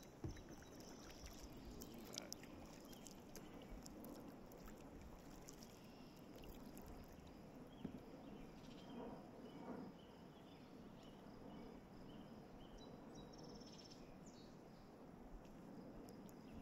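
Faint, quiet river ambience around a kayak: soft water sounds with scattered light drips and clicks, and a few faint high chirps in the second half.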